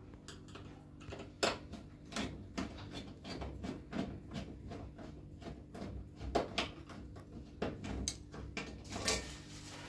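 Screwdriver turning a screw out of the underside of a combi boiler's plastic front casing: irregular small clicks and scrapes, with a few sharper clicks among them.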